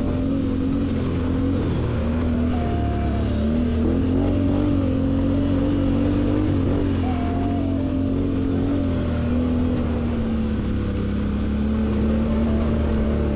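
Can-Am Outlander XMR 1000's V-twin engine running under changing throttle as the ATV rides, its revs rising and falling over a heavy low rumble.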